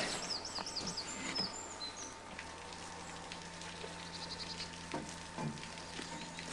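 Steam hissing steadily from the LMS Stanier Class 8F steam locomotive as it stands in steam, with birds chirping in the first second or so.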